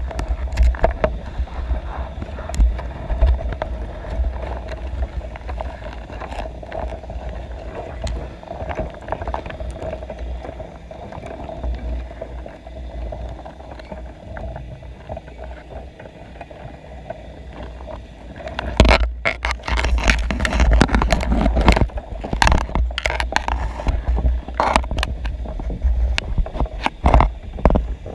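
Underwater sound from a camera inside a submerged crab pot with crabs in it: a steady low rumble with a faint constant hum. About two-thirds of the way in, a run of loud knocks and scrapes begins.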